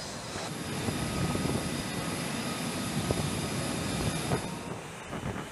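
Steady rushing noise of jet aircraft engines running on an aircraft carrier's flight deck.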